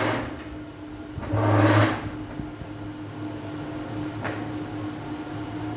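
Marker pen scratching across a whiteboard as words are written, with one louder scraping rush about a second and a half in and a single sharp click a little past four seconds.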